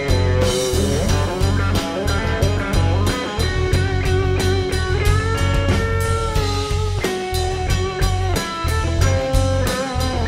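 Live blues-rock band playing an instrumental break: an electric lead guitar plays long, bending notes over a drum kit beat, bass guitar and acoustic guitar.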